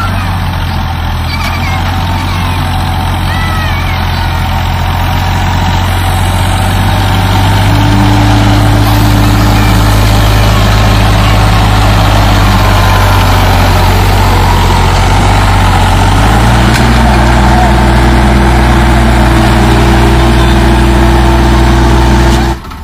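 Sonalika DI 42 tractor's diesel engine running steadily while it pulls a loaded trolley through deep muddy ruts. It gets louder and steps up in engine speed about a third of the way in, steps up again past two-thirds, and cuts off abruptly at the very end.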